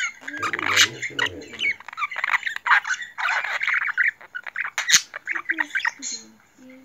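Male budgerigar chattering and warbling close up, a fast run of chirps, clicks and scratchy notes, with one louder sharp click about five seconds in.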